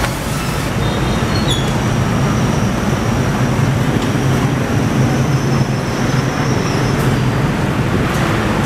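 Diesel train engine running, a steady low rumble.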